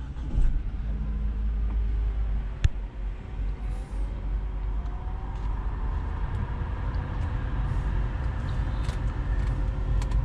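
Nissan Qashqai running: a steady low engine rumble, with one sharp click about two and a half seconds in.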